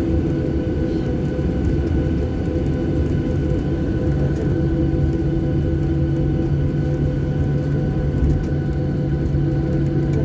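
Jet airliner's engines heard from inside the cabin while the plane taxis, a steady drone with several steady hums on top.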